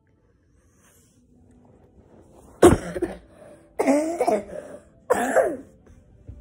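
A child coughing three times, about a second apart, after a couple of seconds of near quiet.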